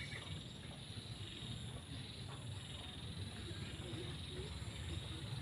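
Steady high-pitched chirring of insects such as crickets in a field, over a low rumble from the handheld phone being carried.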